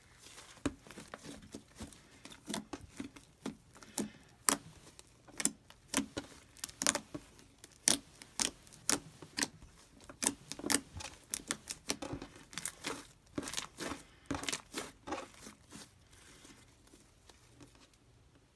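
Slime being squeezed and poked by hand, giving irregular sharp sticky pops and crackles several times a second, thinning out near the end.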